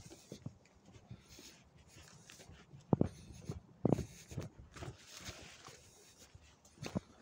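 Footsteps on a leaf-littered woodland dirt path, with irregular rustling and a few louder thuds about three and four seconds in and again near the end.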